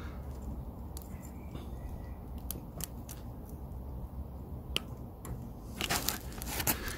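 Small metal clicks from a bicycle chain and its KMC slotted quick link being worked by hand. The link goes in but won't line up. About six seconds in comes a short burst of rattling as the chain is moved.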